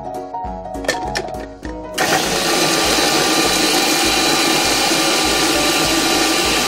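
Electric food processor starting about two seconds in and running steadily at full speed, chopping fresh red chilies into a coarse paste. Background music with a steady beat plays throughout.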